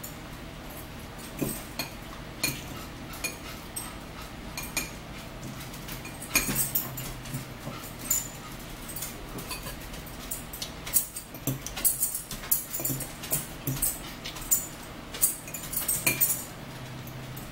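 Metal forks clinking and scraping on salad plates and bowls, with chewing, in irregular short clicks that come thicker after about six seconds.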